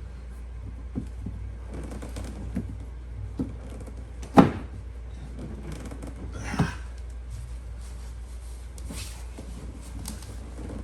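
Plastic side panel of a massage chair being pried loose from its peg holders by hand: scattered small clicks and creaks, with two sharper knocks about four and six and a half seconds in, over a steady low hum.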